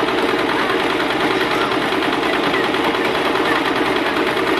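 Electric sewing machine running steadily at speed, the needle stitching rapidly through a section of woven cord.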